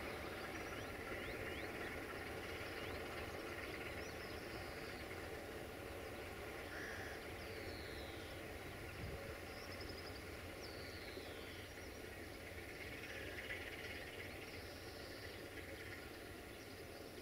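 Low, steady rumble of a distant diesel locomotive, slowly getting quieter, with small birds chirping over it in several short falling chirps.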